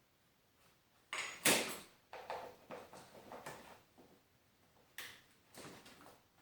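Metal hooks and strap hardware clattering and clicking as they are handled and hooked up: a run of rattles and clacks starting about a second in and lasting a few seconds, then two more clacks near the end.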